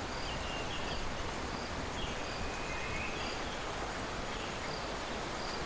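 Steady rush of river water, with short high bird chirps repeating over it.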